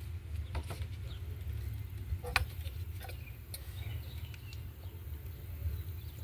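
Faint clicks and plastic handling noise as new ignition coils are pressed down by hand onto the spark plugs, with one sharper click about two and a half seconds in, over a steady low rumble.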